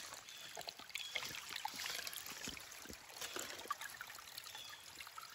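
Shallow brook trickling over stones, with scattered small ticks.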